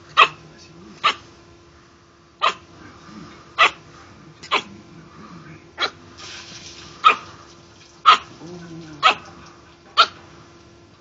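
A dog barking repeatedly: single short, sharp barks at about one a second, about ten in all.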